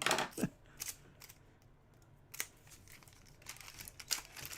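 Trading card box and pack packaging being handled and opened: scattered crinkles and clicks, with a louder cluster at the start, a sharp click about two and a half seconds in, and a run of small ticks near the end.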